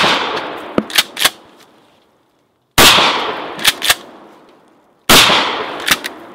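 Pump-action 12-gauge shotgun firing 00 buckshot: three blasts about two and a half seconds apart, the first right at the start. After each blast comes a double clack as the pump is racked to chamber the next shell.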